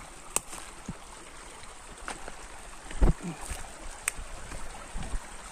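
Shallow rocky stream trickling steadily, with a few sharp knocks and one louder low thump about three seconds in.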